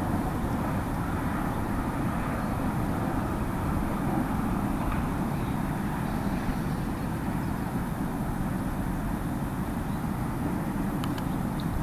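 Steady low rumble of outdoor background noise, with a few faint ticks near the end.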